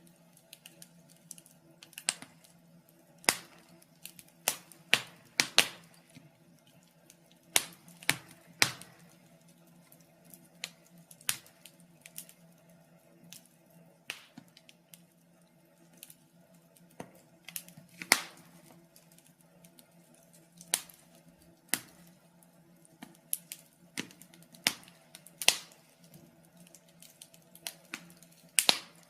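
Wood fire in a fireplace crackling, with irregular sharp pops, some of them loud, over a faint steady low hum.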